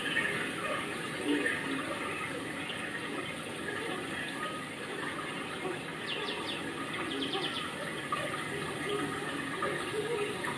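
Steady rushing, water-like noise, with a short run of quick high chirps about six to seven seconds in.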